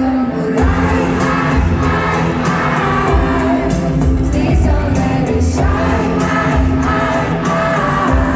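Live K-pop song played through a concert PA: female vocals over a steady bass line and beat, heard from within the audience.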